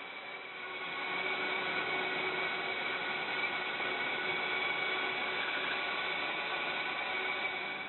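Logosol PK1500 stack cutter sawing down through a stack of boards: its 5 kW three-phase electric motor drives a 3/8" cross-cut chain on a long guide bar. The sound is a steady machine hiss with a constant whine, growing louder about a second in and dropping off at the end.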